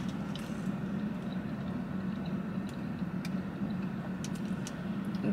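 Steady low hum of a running car heard from inside the cabin, with a few faint clicks of a mouthful of pasta being chewed.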